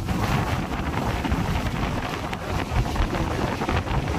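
Wind buffeting the microphone in a heavy rainstorm, with the hiss of hard-falling rain behind it.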